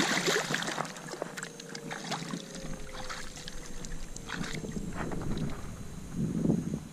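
A released redfish kicking free of the hands and splashing away beside a boat hull: one loud splash right at the start, then small splashes and drips of water.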